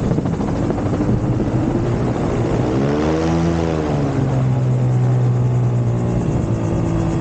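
Rotax engine of a Dominator gyroplane running as it rolls along the runway, its pitch swelling up and back down about three seconds in, then holding steady.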